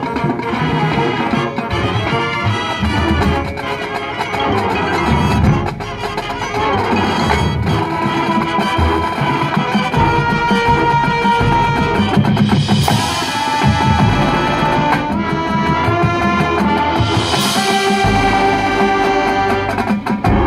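High school marching band playing, with brass holding sustained chords over drums and front-ensemble percussion. Two bright crashes come about 13 and 17 seconds in.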